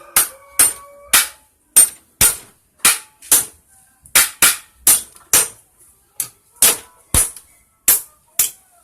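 Hammer striking metal parts of a motorcycle engine being dismantled: about sixteen sharp metallic blows, roughly two a second at an uneven pace, with a short ring after one of the first strikes.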